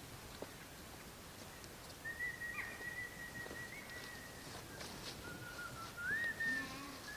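A thin, high whistled note held steady for about two and a half seconds, then a lower note that glides back up to the first pitch near the end.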